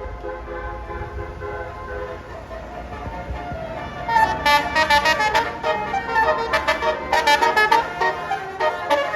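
Bus telolet horn of the Basuri type, a multi-tone musical air horn, playing a tune over the low rumble of the bus. About four seconds in it turns louder, into a quick run of short choppy toots.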